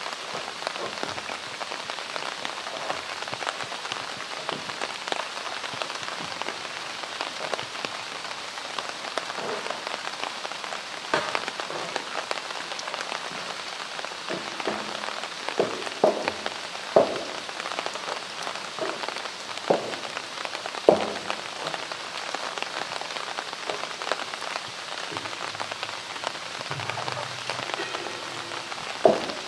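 A polar bear biting and pushing at a plastic drum, giving scattered sharp knocks, bunched about halfway through, over a steady hiss.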